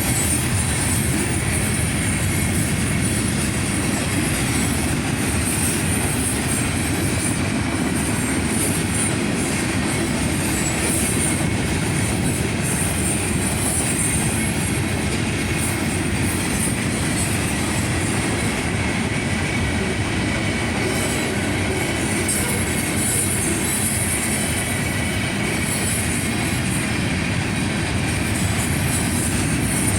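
Florida East Coast Railway freight train rolling steadily past at a grade crossing: a continuous rumble of steel wheels on rail, with a high squeal that comes and goes.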